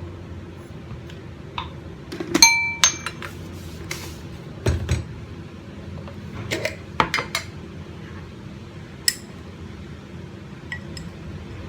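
A metal spoon clinking and tapping against dishes while sugar is spooned into a marinade. The clinks are scattered, and the loudest, about two and a half seconds in, rings briefly.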